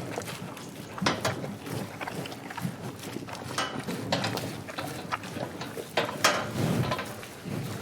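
Cows grazing: irregular crisp tearing and crunching as grass is ripped and chewed, with low snuffling breaths.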